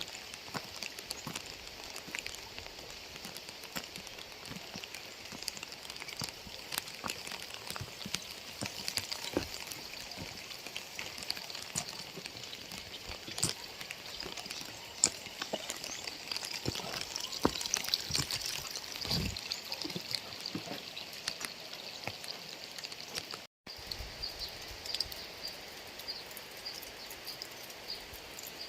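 Steady rain with many separate drops striking close by. The sound cuts out for a split second near the end.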